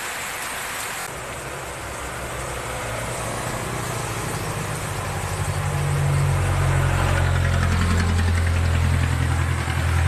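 A vehicle engine idling close by, growing louder over the first few seconds and steady from about six seconds in, over the hiss of heavy rain.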